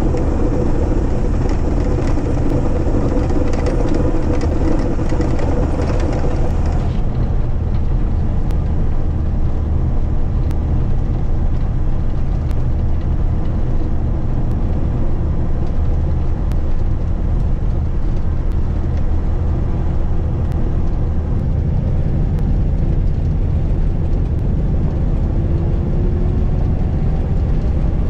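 Diesel engine of a Mack Granite plow truck droning steadily under load while plowing snow. A hissing rush of snow coming off the plow fills the first several seconds, then stops suddenly about seven seconds in, leaving the low engine drone.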